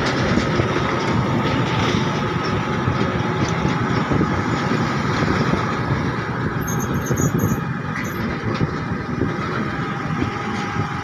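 Steady road traffic noise with a truck's engine running close by. There is a continuous rumble and no single sudden event.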